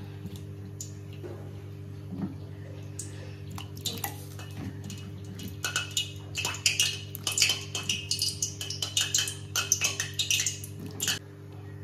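Chunks of raw papaya and potato dropped one after another into a metal pan of water and lentils, splashing and knocking against the pan, sparse at first and coming thick and fast in the second half. A steady low hum runs underneath.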